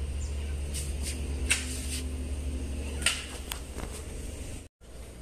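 A cat eating from a stainless steel bowl: a few sharp clicks of chewing and of the bowl, over a steady low rumble. The sound drops out for a moment near the end.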